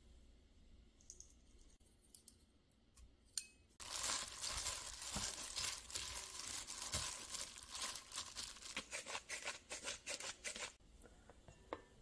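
A hand in a thin disposable plastic glove squeezing and tossing shredded carrots in a glass bowl: the glove crinkles in a dense crackly rustle that starts about four seconds in and stops about three seconds later.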